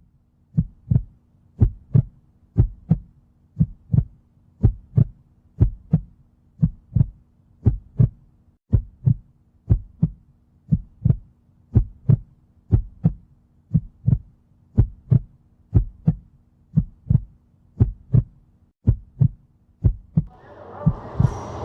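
Heartbeat sound effect: a steady double thump, beat after beat, over a faint low hum. Near the end the noise of the game fades back in underneath.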